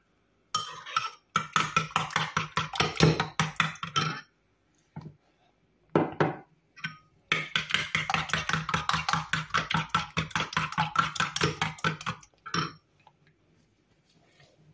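Metal spoon beating eggs in a ceramic bowl: quick clinking strokes against the bowl, about seven a second, in two bouts with a pause of a few seconds between. It stops a couple of seconds before the end.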